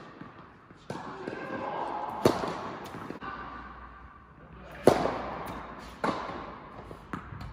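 Tennis ball impacts echoing in an indoor tennis hall: a sharp pop a little over two seconds in, the loudest strike (the serve) about five seconds in, and the return from the far end about a second later, with softer bounces between.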